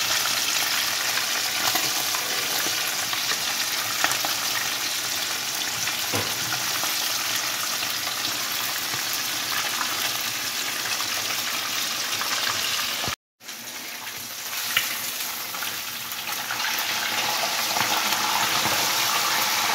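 Whole mojarra frying in hot oil in a pan: a steady, crackling sizzle. It breaks off for a moment about two-thirds of the way through, then sizzles on.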